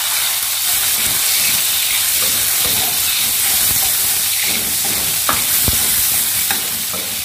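Chicken pieces and chopped garlic sizzling in hot oil in a wok, a steady hiss, with a spatula scraping and knocking against the wok every second or so as they are stir-fried.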